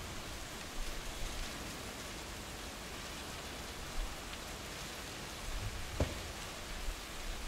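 Steady rain falling, an even hiss of many drops. A few brief low thumps come through it, the sharpest about six seconds in.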